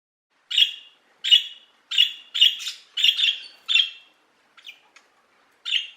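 Budgerigar chirping: a run of short, sharp chirps, about two a second, easing off into a few faint ones past the middle before one more louder chirp near the end.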